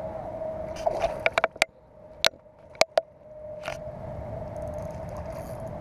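Hooked bass being reeled to a kayak, splashing and thrashing at the surface: a quick run of sharp splashes and knocks in the first few seconds, over a steady hum.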